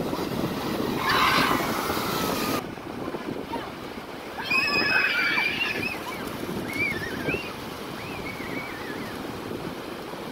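Wind on the microphone and sea surf making a rough, steady rush. Faint high voices call out a few times.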